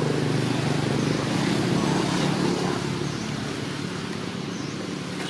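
A motor engine running steadily, louder in the first half and fading away after about three seconds.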